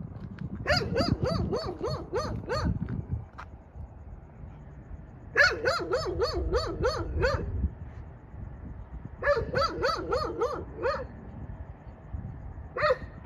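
Dog barking in three quick runs of about four barks a second, each bark rising and falling in pitch, with a single bark near the end.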